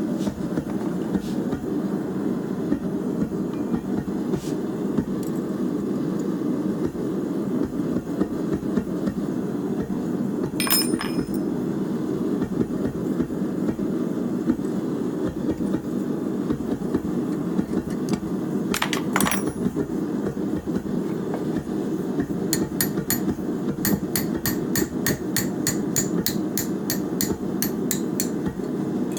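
Hand hammer striking a steel bar, an old concrete chisel being forged, on an anvil. There are a few scattered blows, one of which rings, then a steady run of blows at about three a second in the last several seconds, over a constant low rushing noise.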